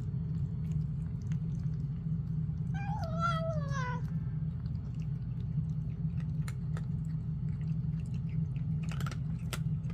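A domestic cat gives one long, wavering meow that falls in pitch, about three seconds in, over a steady low hum, with scattered small clicks.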